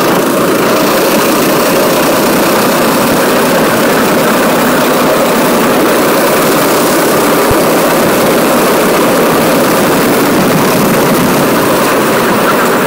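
Go-kart engine heard from onboard, running hard and steady as the kart laps the track.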